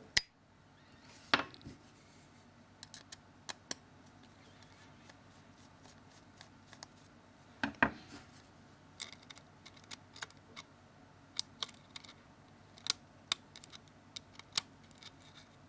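Small metal tools, a screwdriver and tweezers, clicking and tapping against a smartphone's internal frame as tiny screws are undone and lifted out. Irregular sharp clicks, a few of them louder.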